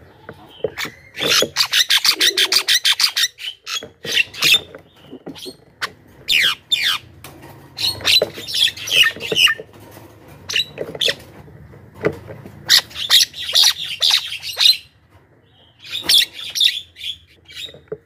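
Javan myna calling in repeated bursts of rapid harsh chatter and clicks, with a few falling whistled notes, the phrases separated by short pauses.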